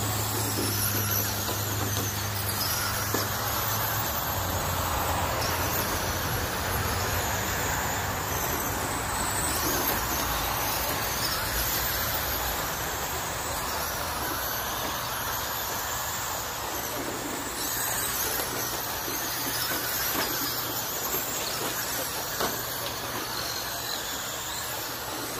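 A pack of Traxxas Super Slash electric RC short-course trucks racing on a dirt oval, their motors and drivetrains whining at high pitch, rising and falling as the trucks pass.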